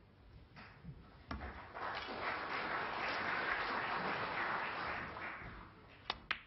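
Audience applauding for a few seconds, then dying away. Near the end come two sharp clicks in quick succession: the cue tip striking the cue ball, then the cue ball hitting a red.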